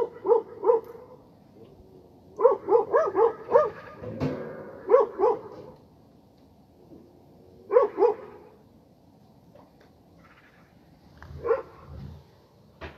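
Stray dogs barking in bursts of several quick barks, separated by quiet gaps, with a lone bark near the end.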